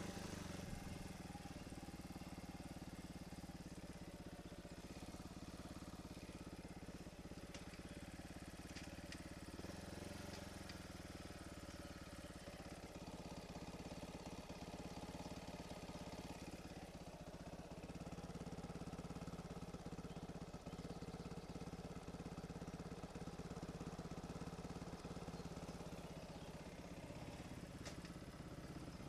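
Trail motorcycle engine running steadily while the bike is ridden along, heard from a helmet-mounted camera.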